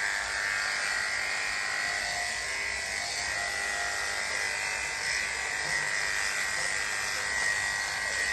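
Corded electric dog grooming clippers running steadily with a high-pitched hum as they are worked through a Maltese Shih Tzu's coat.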